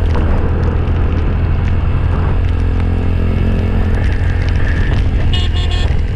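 Motorcycle engine running steadily while riding, with wind rushing over the microphone. A few short high-pitched beeps come near the end.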